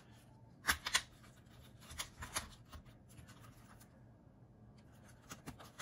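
Light plastic clicks and taps from handling an Axial SCX24 1/24-scale RC crawler as its body shell is set onto the chassis: a few sharp clicks about a second in and around two seconds, with faint rubbing between and a short run of clicks near the end.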